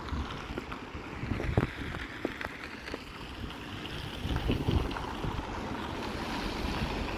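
Strong wind buffeting the microphone: an uneven low rumble with a few scattered light clicks.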